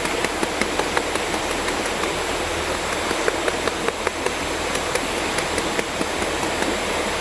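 Mountain river rushing steadily, with a run of short sharp taps or clicks, a few a second, over it.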